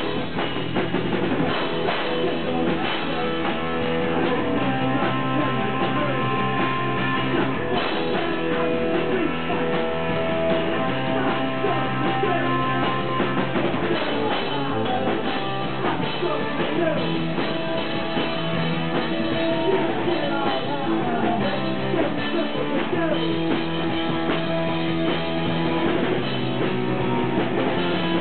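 A live rock band playing at full volume: electric guitar and drum kit, with a man singing lead vocals.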